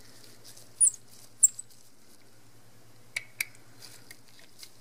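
Small-screwdriver work on the screws of a Canon EOS 6D's bottom circuit board: two short, high squeaks about a second in, then two light clicks a little after three seconds and a few faint ticks.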